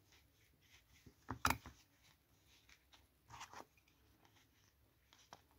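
Quiet handling sounds: a few short clicks and rustles as a small crocheted toy is stuffed with polyester fibrefill using the tip of blunt scissors. The loudest click comes about one and a half seconds in, with fainter rustles around the middle and near the end.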